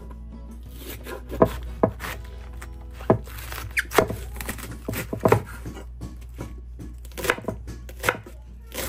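Kitchen knife chopping vegetables on a cutting board: irregular sharp strikes, some loud, spaced roughly half a second to a second apart.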